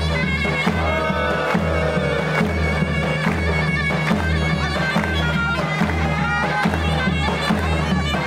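Turkish folk dance music: a shrill, reedy wind instrument playing a lively melody over a steady, evenly repeating drum beat.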